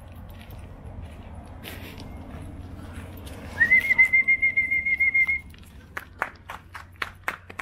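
A person whistling one warbling note for nearly two seconds, sliding up at the start and then held, about halfway through. A few short sharp clicks follow near the end.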